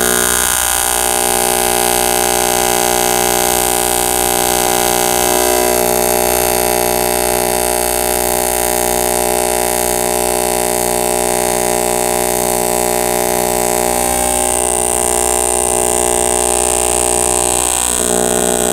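AC TIG welding arc on aluminum plate at 170 amps: a steady, loud buzz made of many evenly spaced tones, held without a break until the arc stops near the end.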